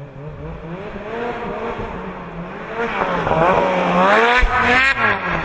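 Snowmobile engine revving hard as the sled comes in and grows louder, its pitch rising and wavering. It is loudest about four seconds in, as the sled goes airborne off a snow jump, then falls away just before the end.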